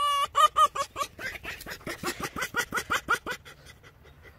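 Tame red fox giving a rapid, high-pitched stuttering chatter of short calls, five or six a second, with a brief held whine near the start; the calls fade out about three and a half seconds in. This is the excited, submissive chatter (gekkering) a tame fox makes while being greeted and petted.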